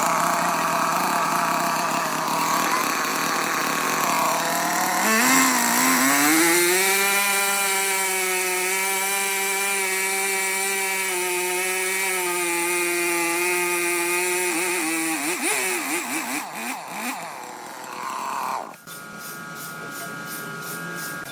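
Sawmill saw machinery running with a loud whine that rises about five seconds in, holds steady, then wavers and drops away after about fifteen seconds. Near the end a different steady whine with rapid even ticking takes over.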